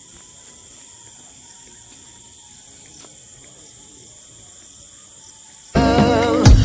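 A steady, high-pitched insect chorus of crickets in grassland. Background music with a beat starts suddenly near the end and is much louder.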